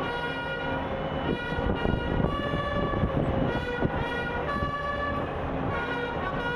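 A tune played in held, horn-like notes that step to a new pitch every half second or so, over a dense background din.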